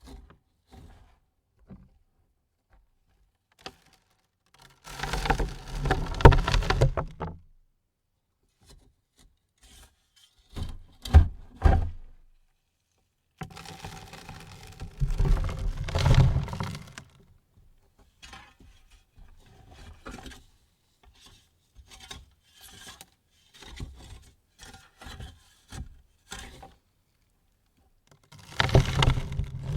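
Dirt thrown onto a wooden coffin lid in separate loads. Heavy, rattling landings come about 5, 15 and 29 seconds in, with a smaller one near 11 seconds. Between them, scattered clods and pebbles tick and patter on the wood.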